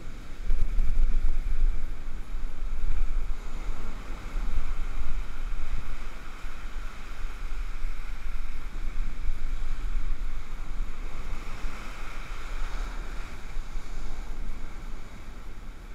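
Ocean surf from storm swells breaking and washing up the beach in foam, a steady rushing wash that swells and eases, with wind buffeting the microphone.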